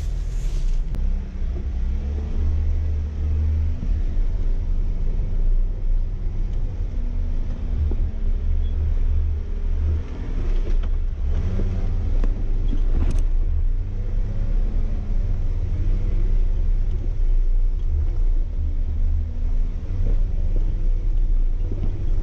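Jeep Wrangler engine running at trail speed over a heavy low rumble, its pitch rising and falling with the throttle. A sharp knock about thirteen seconds in.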